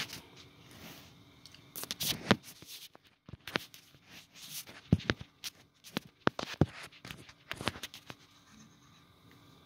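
Handling noise close to the recording phone: irregular clicks, taps and rustles as the phone is set up, dying away about eight seconds in.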